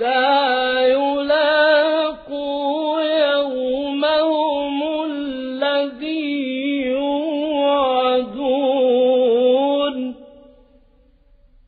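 Male Quran reciter chanting in a slow, melodic, ornamented style: one long held phrase with a wavering pitch that ends about ten seconds in and dies away.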